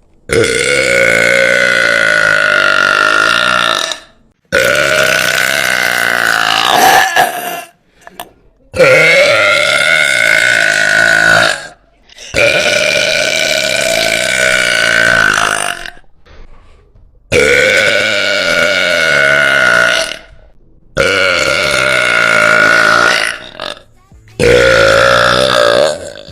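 A woman's very loud, long burps, one after another: about seven, each lasting three to four seconds at a steady pitch, with short pauses between them.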